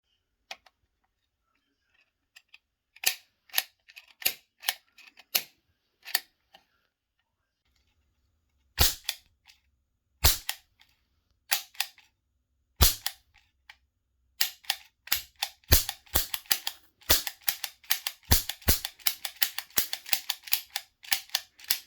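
Repaired Nambu toy cap gun firing caps with sharp snapping bangs. Single shots come a second or more apart at first, then a quick string of several shots a second over the last seven seconds.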